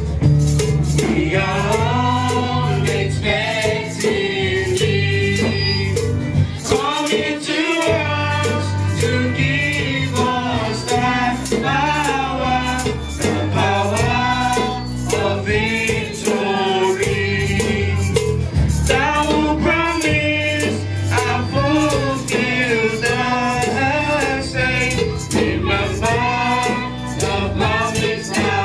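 Gospel song: several voices singing over percussion and a steady bass accompaniment, with a brief dip in the bass about seven seconds in.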